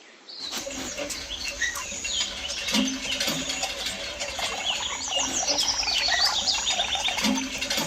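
Many birds chirping and twittering together in a busy, continuous chorus of short high calls, starting about half a second in.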